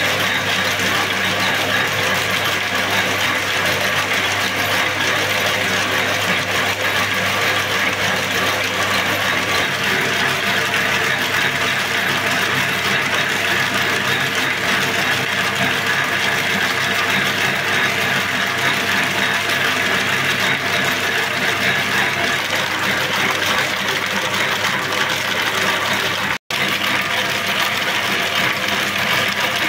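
Bobbin braiding machine running steadily, its spool carriers circling the deck as it braids silk cord. The sound breaks off for an instant near the end.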